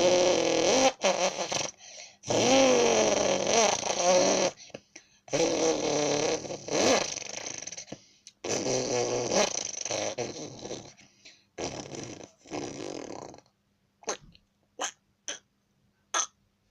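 A person imitating a Lamborghini Huracán engine with lips and voice, revving in several long bursts whose pitch rises and falls. A few short clicks follow near the end.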